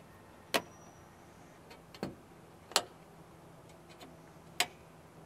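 Plastic bumper clips being snapped into place: four sharp clicks at uneven intervals, a second or two apart, with a few fainter ticks between them.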